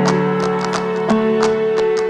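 Instrumental background music: sustained notes over a steady beat.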